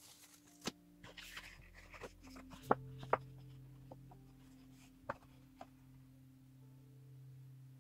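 A sheet of heavy 250 g paper, just pulled off a gel printing plate, rustling and crackling as it is handled. A handful of sharp clicks come through it, the loudest about three seconds in.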